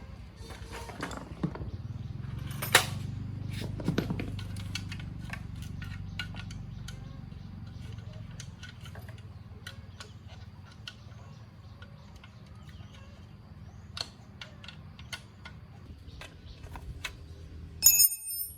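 Metal tools and parts being handled: scattered clicks and clinks over a low steady hum, with a louder bright ringing clink near the end.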